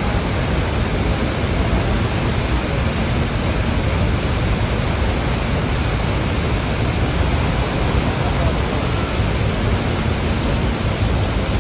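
Niagara Falls roaring steadily: a huge volume of water plunging into the gorge, a deep, unbroken rush of sound.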